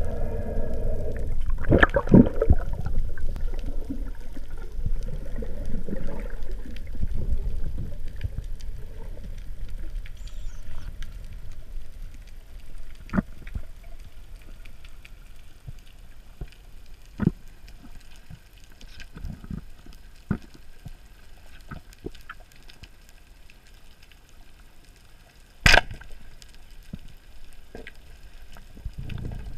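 Underwater water noise around a descending freediver: a low churning rush at first that fades to a quieter underwater hiss, with scattered sharp clicks and one louder crack near the end.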